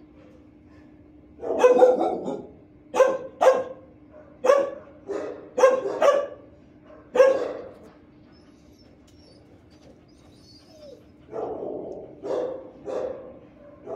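Shelter dogs barking in a hard-walled kennel block, a dozen or so echoing single and double barks with a pause of about three seconds in the middle. A steady low hum runs underneath.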